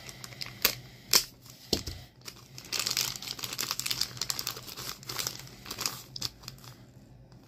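Shiny plastic blind-bag wrapper being crinkled and torn open by hand: a few sharp crackles, then about three seconds of dense crinkling that thins out near the end.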